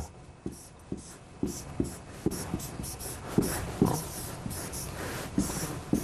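A pen writing on a large presentation board: a string of short, scratchy strokes and light taps, a few a second.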